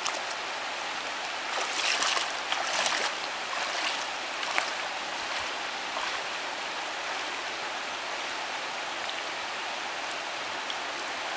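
River water rushing steadily, a hiss of flowing water with a few louder surges in the first few seconds.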